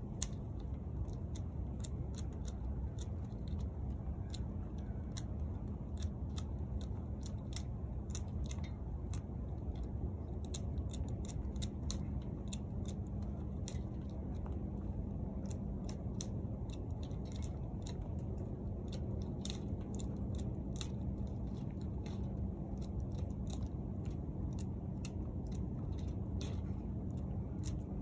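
Hand pruning shears snipping dormant grapevine canes, with many irregular sharp clicks, sometimes several a second. Under them runs a steady low hum.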